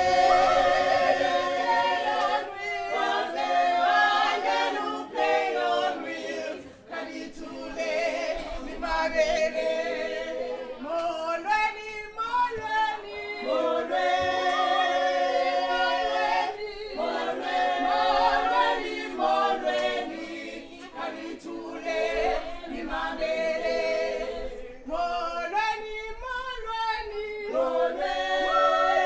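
A group of voices singing together without instruments, choir-style, in phrases of a few seconds with short breaks between them.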